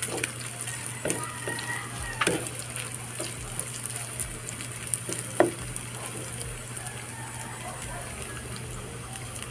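Diced meat sizzling in hot oil in a nonstick frying pan, stirred with a wooden spatula that clicks and scrapes against the pan a few times, most sharply about two and five seconds in.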